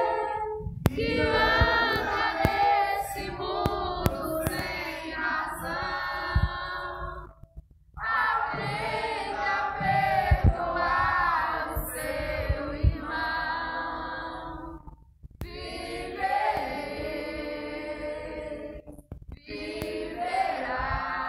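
A single voice singing into a handheld microphone, amplified through a loudspeaker, in long phrases broken by short pauses, with a few dull low thumps.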